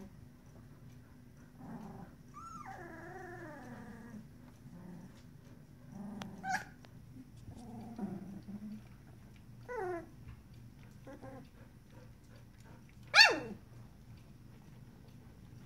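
Sixteen-day-old puppies whimpering and squealing: a wavering whine a few seconds in, a couple of short squeaks falling in pitch, soft grunts, and a louder high squeal dropping sharply in pitch near the end.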